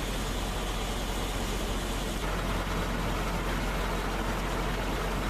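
Fire engine's engine running steadily, a low hum under an even hiss.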